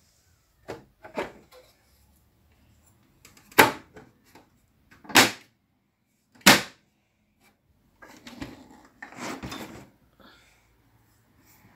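Carrying case of a Philips reel-to-reel tape recorder being shut and handled: a few light knocks, then three loud clunks about a second and a half apart. Scraping and rattling follow near the end as the case is lifted by its handle.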